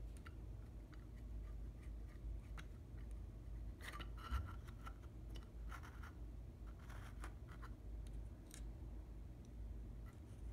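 Small white plastic jet bridge model pieces being handled and fitted: light clicks and scrapes of plastic on plastic, a cluster about four seconds in with one sharper click, then scattered ones, over a low steady background rumble.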